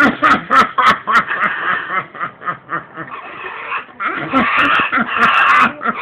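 Blue-and-gold macaw attacking its rattle toy: sharp rattling clicks in the first second or so, then repeated bursts of rattling that grow denser and louder about four seconds in, mixed with the bird's own vocal noises.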